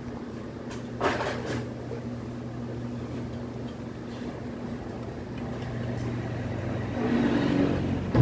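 A steady low hum from a running motor or appliance, with rustling as a hand rubs a small long-haired dog's fur and the phone is handled, and a sharp knock right at the end.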